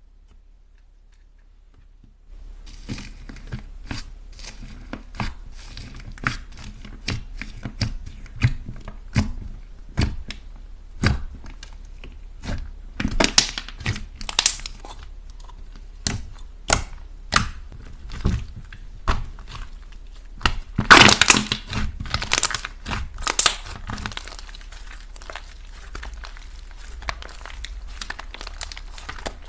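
Slime being squeezed and stretched by hand, making a dense run of crackles, sticky pops and sharp clicks that starts about two seconds in, with louder crunchy stretches in the middle and near the end.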